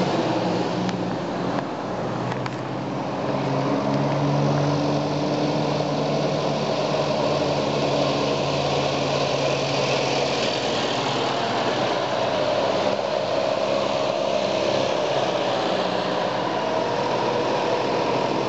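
Engines of vintage farm tractors running as the tractors drive past one after another, a steady engine drone that gets louder from about four seconds in as one passes close.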